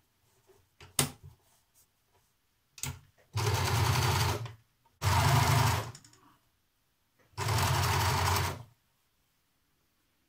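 A 23-year-old overlocker (serger) stitching a seam in knit fabric, run in three bursts of about a second each with short pauses between. A single sharp click comes about a second in, before the machine starts.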